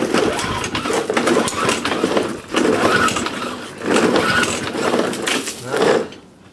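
Petrol lawnmowers being wheeled over stone paving slabs, their wheels and decks rattling and clattering in several loud bursts; no engine is running. The clatter stops about six seconds in.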